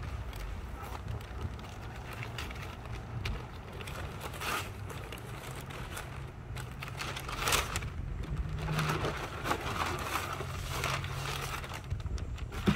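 Packaging being opened and handled: irregular crinkling, crumpling and tearing of plastic wrap and cardboard, busiest in the second half, over a low steady hum, ending with a sharp knock.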